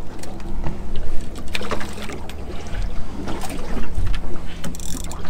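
Choppy water slapping against the hull of a small open boat over a steady low rumble, with occasional small knocks and clicks.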